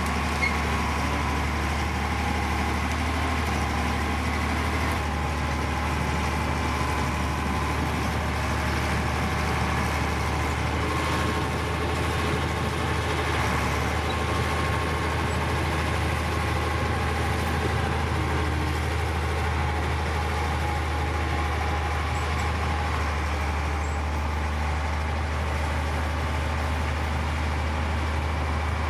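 Heavy diesel engine of earthmoving machinery running steadily as a low, even drone, with no change in revs.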